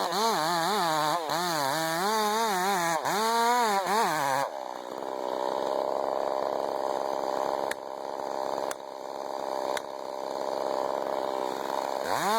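Two-stroke chainsaw running, its engine pitch rising and falling over and over for the first four seconds, then holding a steadier, lower-level tone with a few sharp clicks, and revving up again near the end.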